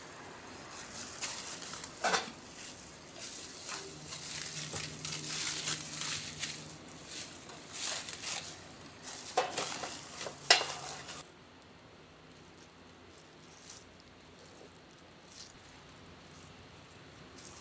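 Plastic cling film and cloth wrapping crinkling and rustling as they are pulled back from a large steamed rice cake, with several sharper crackles. The rustling stops about two-thirds of the way through, leaving low room noise with a couple of faint clicks.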